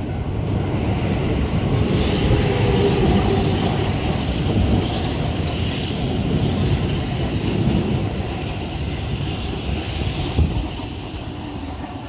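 Keihan 2600 series electric commuter train passing close by on a steel girder bridge: a loud rumble and clatter of wheels on rail. It builds over the first couple of seconds, holds, and eases a little near the end, with one sharp knock about ten seconds in.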